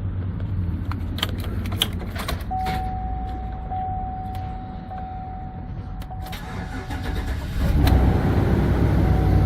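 A few clicks, then a steady high tone for about five seconds, then the Chevy Express van's engine starts about three-quarters of the way in and keeps running after a no-start caused by a bad anti-theft fuse.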